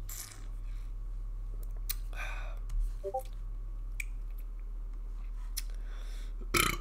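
Mouth sounds of someone tasting a sip of seltzer: small lip-smacking clicks and breaths over a steady low hum, with a louder rush of noise near the end.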